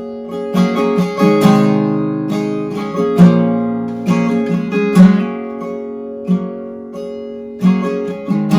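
Instrumental break in a worship song: acoustic guitar strumming chords, with sharp strokes about once a second.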